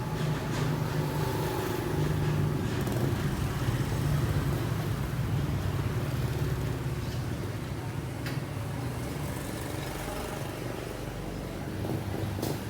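Motorbike engine running steadily with a low hum, a little louder in the first half and easing later.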